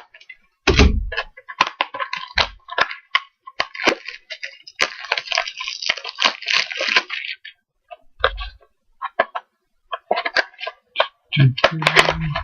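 Trading-card mini box being unwrapped and opened by hand: crackling, crinkling wrapper with many sharp clicks and a few dull thumps from handling. The crinkling is densest from about five to seven seconds in.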